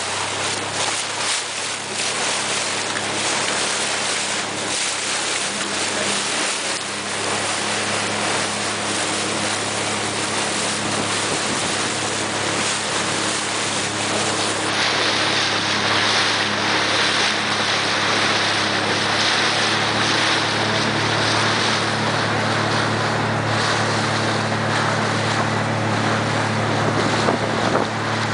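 Outboard motor of a Zodiac inflatable boat running steadily under way, with the rushing of water and wind over the boat; the rushing grows louder and brighter about halfway through.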